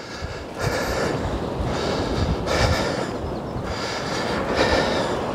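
A person walking: jacket and backpack rustling and footsteps close to the microphone, a swish about once a second, over low rumbling handling noise.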